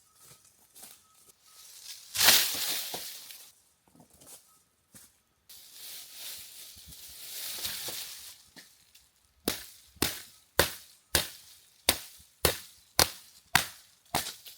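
Rustling and crunching, then a steady run of about ten sharp knocks, roughly two a second.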